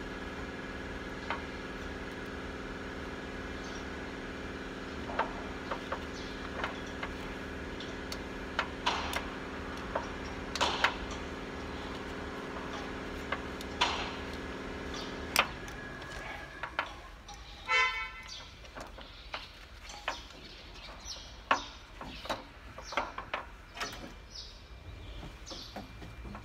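Scattered light metallic clinks and knocks as the rocker arm assembly on the cylinder head of a Nissan GE13 diesel engine is handled. They sit over a steady background hum that cuts off suddenly a little past halfway. About two seconds later comes a brief horn-like toot, the loudest sound.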